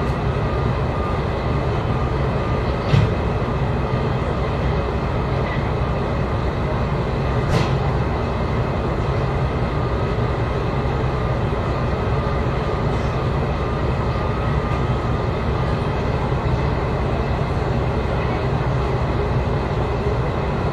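Diesel railcar's engine idling steadily while the train stands at the platform, heard from inside the car. There is a brief knock about three seconds in and a short click about seven seconds in.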